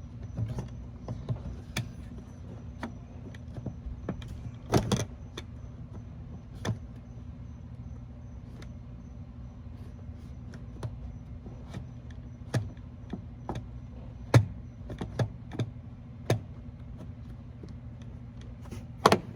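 Irregular plastic and metal clicks and knocks as a BMW E46 accelerator pedal assembly is slid onto its mount and pushed into place, sharp taps a second or so apart with the loudest about five seconds in, about fourteen seconds in and near the end. A steady low hum runs underneath.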